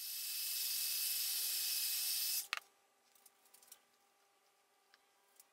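Heat gun blowing a steady hiss of hot air to pop bubbles in freshly poured resin, switched off with a click about two and a half seconds in; a few faint ticks follow.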